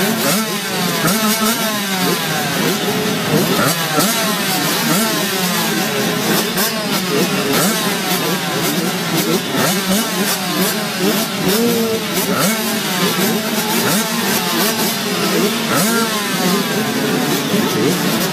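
A pack of motocross bikes revving together at the start gate: many engines overlap in a dense, continuous din, each rising and falling in pitch as the riders blip their throttles while waiting for the start.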